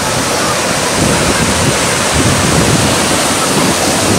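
Ocean surf washing and foaming in the shallows, a steady loud rush, with wind buffeting the microphone.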